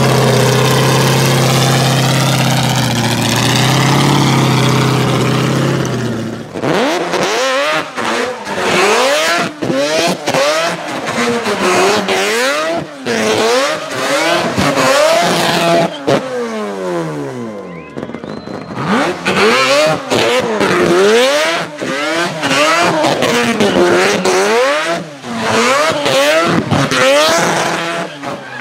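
A race car's engine running steadily at a constant speed. Then, from about six seconds in, a car spinning donuts, its engine revving up and down over and over as the rear tyres spin.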